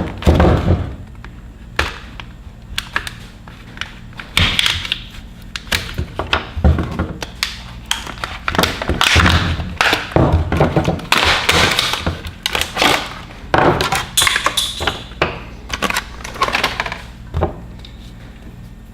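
Tool packaging being handled and opened: irregular crinkling and rustling with many sharp knocks and thunks.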